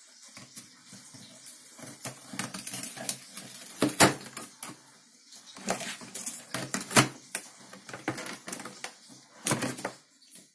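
Cat chewing and tearing at the edge of a cardboard gift box: an irregular run of crunches and sharp crackling snaps of cardboard, with a few louder snaps, stopping shortly before the end.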